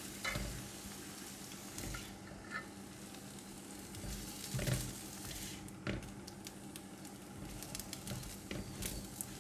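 Silicone spatula scraping scrambled egg across a nonstick wok and into a bowl: soft scrapes and a few light knocks over a faint sizzle from the still-hot pan.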